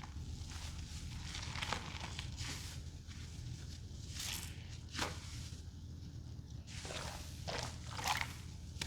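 Wet, soapy sponges being squeezed by hand, giving a run of irregular wet squelches. A sharper one comes about five seconds in, and the loudest is near the end.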